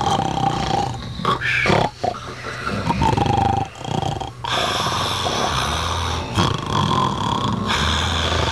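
A dog grunting and snorting close up as it wriggles and rubs itself on its back on the floor.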